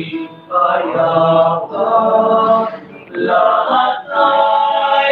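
Male choir singing at rehearsal, in held notes broken into phrases of about a second with short breaks between them.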